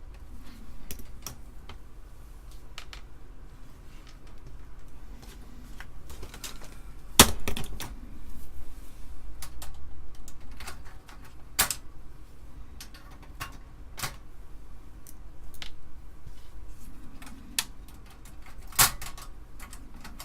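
Irregular clicks and taps of a screwdriver and small metal parts being handled while screws are removed from an Amiga 500's motherboard and RF shielding. Three sharper, louder clicks come about seven, eleven and nineteen seconds in.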